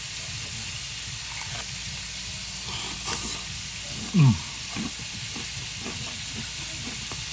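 Chicken frying in hot oil, a steady sizzle. A short sound falls in pitch about four seconds in, the loudest moment.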